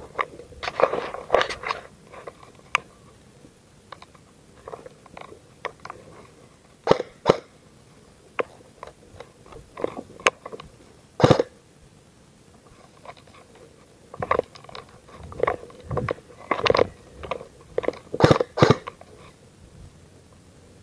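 Footsteps crunching over dry leaves and litter in irregular bursts, near the start and again later, with a few sharp single clicks in between.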